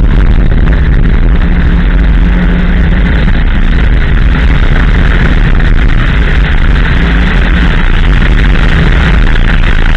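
Abarth 500's 1.4-litre turbocharged four-cylinder engine running under load on a gravel stage, heard through a microphone hung outside under the door mirror: loud and steady, with heavy wind rush and the noise of the tyres on loose gravel over the engine note.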